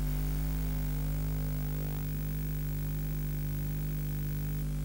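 Steady low electrical hum with a faint buzz, typical of VHS tape playback where no programme sound is on the track.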